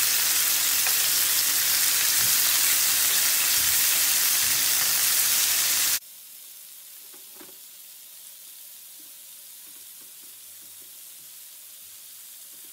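Chicken breast pieces sizzling in hot oil in a frying pan, a loud, even hiss. About six seconds in it drops abruptly to a much quieter sizzle, with a few faint taps of a fork turning the pieces.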